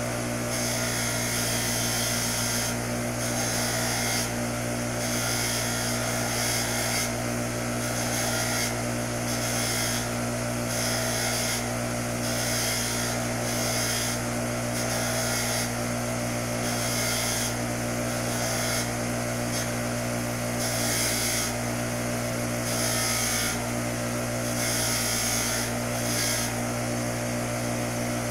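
Bench grinder with a steel wire wheel running at a steady hum, while a small steel nut is pressed against the wheel again and again to clean it. Each contact adds a harsh scratching hiss, in repeated strokes every second or two.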